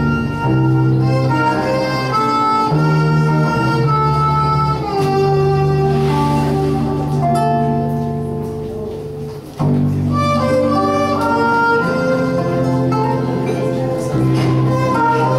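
Live experimental-ethnic music: an acoustic guitar with a sustained melody instrument over a held low drone. The sound fades slightly about eight seconds in, then comes back abruptly a moment later.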